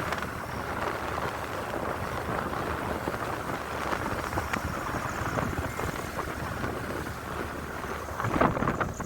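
Heavy rain falling steadily, with wind buffeting the microphone and growing louder near the end.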